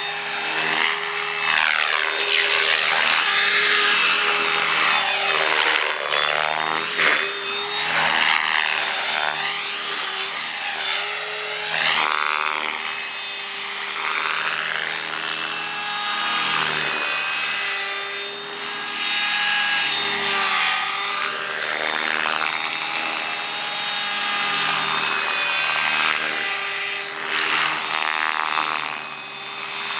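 Stretched MSH Protos electric RC helicopter in flight: the whoosh of its 470 mm main rotor blades over a steady whine, swelling and fading as the helicopter moves about.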